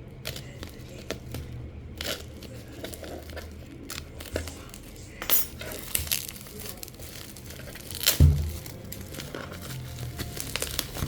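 Packaging and small hard parts being handled: crinkling and scattered clicks and clinks, with a heavier thump about eight seconds in.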